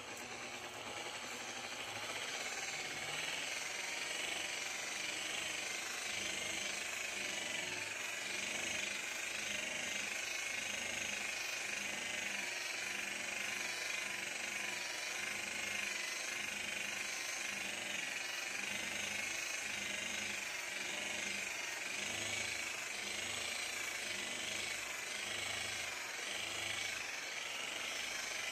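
Handheld rotary buffer with a white buffing pad, running against a fiberglass boat hull to compound oxidized gelcoat. The motor comes up to speed over the first couple of seconds, then runs steadily with a slow, regular pulsing.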